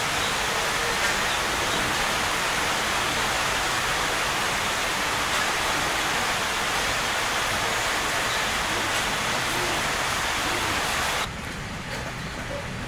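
A steady, even rushing hiss of noise, which cuts off abruptly near the end.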